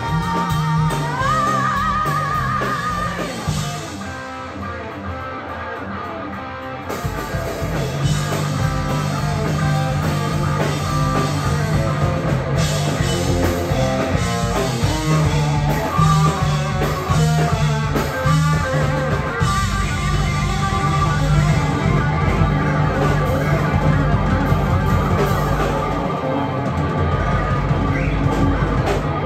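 Live rock band playing: electric guitar, bass guitar, drum kit and keyboard. A few seconds in the low end drops out and the band plays quieter, then the full band comes back in about three seconds later.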